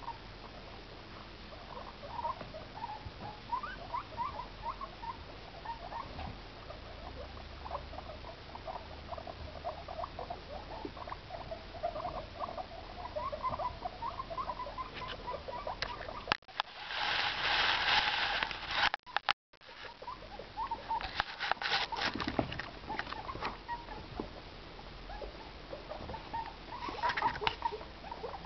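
Guinea pigs making many short, quick squeaks and chirps, with light scuffling. About halfway through there is a loud rustling close by for a couple of seconds, and more bursts of it a few seconds later.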